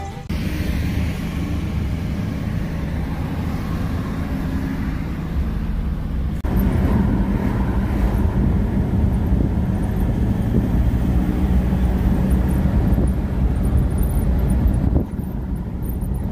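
A small van's engine and road noise heard from inside the cab while driving: a steady low rumble that grows louder about six seconds in and drops back briefly near the end.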